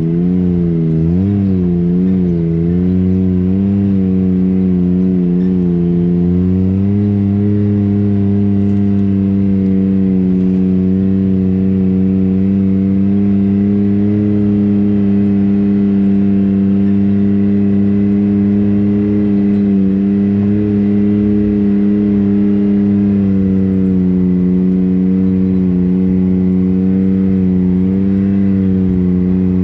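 Off-road vehicle's engine running while riding along a dirt trail. Its pitch wavers up and down for the first few seconds, then holds steady a little higher, with a brief dip about two-thirds of the way through.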